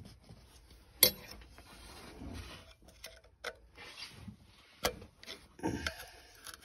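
A few sharp clicks and knocks over faint rubbing, the loudest about a second in.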